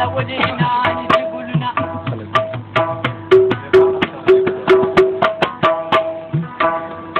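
Pashto folk music: a rabab plucked in a quick, busy melody with repeated notes, accompanied by steady strokes on a mangay clay-pot drum.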